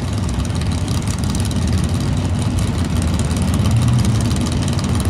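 Drag-racing muscle cars' engines idling at the start line, a steady low sound that swells slightly about four seconds in.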